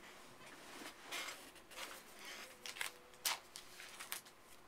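Faint handling noises: soft rustling and a few sharp clicks, the loudest about three seconds in, as headphones are adjusted and a broadcast mixing console is handled.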